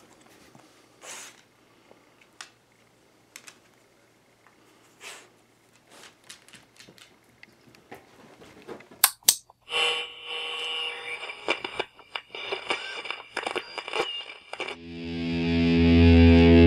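A dog worrying a stuffed toy on a wooden floor, faint short scuffs and snuffles. About nine seconds in, intro music cuts in: sharp hits and electronic effect tones with clicks, then, from about fifteen seconds, a loud distorted electric guitar chord that swells up and holds.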